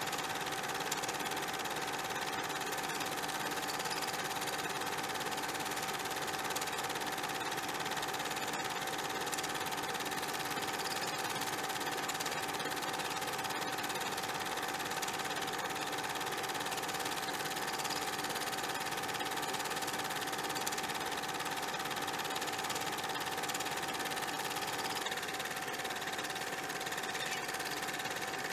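A steady mechanical running noise with a constant hum under it, even throughout, shifting slightly in tone about three-quarters of the way through.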